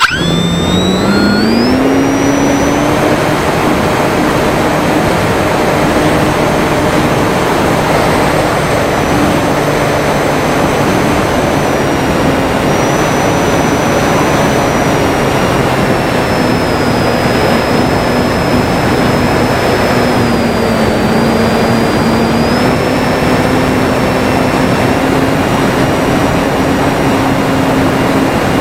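Durafly Tundra RC plane's electric brushless motor and propeller starting up abruptly, rising in pitch over the first few seconds as the throttle opens, then running at a steady hum with slight pitch wavers over a loud rush of noise.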